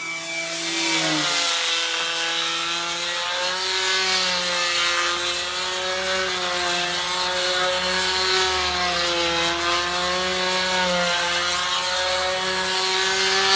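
Control-line aerobatic model aircraft's small engine running in flight, a steady buzz whose pitch rises and falls gently as the model flies its manoeuvres.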